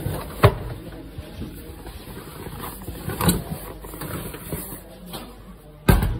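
A fabric bag pushed into a metal locker, knocking a few times against the steel walls, then the locker door pushed shut with a sharp knock near the end, the loudest sound.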